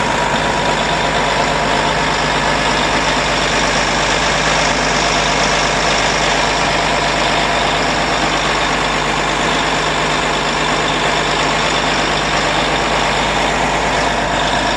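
Heavy farm machinery running steadily: a tractor engine and grain cart auger unloading harvested wheat into a truck. The noise is loud and unchanging.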